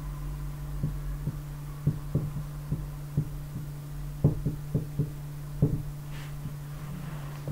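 Marker writing on a whiteboard: a string of irregular soft taps and knocks as the pen strokes meet the board, over a steady low hum.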